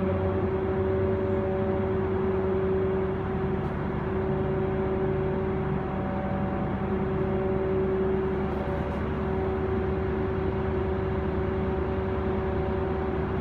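Steady machinery hum in a hydroelectric plant's switchgear room: several held tones over an even rushing noise, unchanging throughout.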